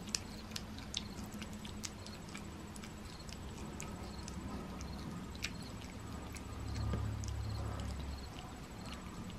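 Cat eating a piece of raw duck breast off a paper plate: faint, irregular small clicks and smacks of chewing and licking. A brief low rumble comes about seven seconds in.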